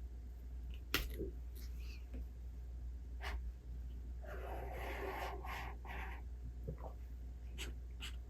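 Paper rustling for about two seconds in the middle, typical of a book page being turned, with a few light clicks and taps around it over a steady low hum.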